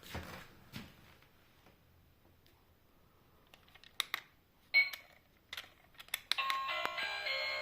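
Electronic sound effects from a RailKing model train set: scattered clicks, a short loud chime about two-thirds of the way in, then a steady sound of several held tones starting near the end.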